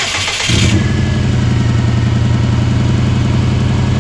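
2002 Subaru WRX's turbocharged flat-four engine cranking briefly, catching about half a second in, then settling into a steady idle. The car has a misfire and erratic idle, which the owner traces to a faulty idle air control valve.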